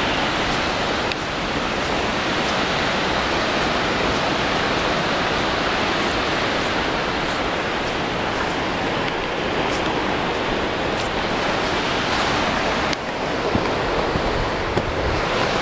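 Steady rushing water with no let-up, with faint light ticks recurring about every half second.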